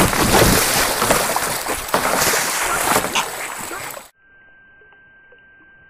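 A goose beating its wings against a kayaker, with loud water splashing and thrashing. The sound cuts off suddenly about four seconds in, leaving only a faint steady high tone.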